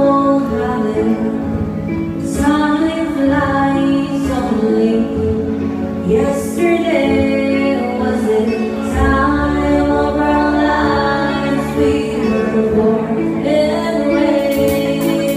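A woman singing live into a microphone, amplified through a PA, over steady instrumental backing.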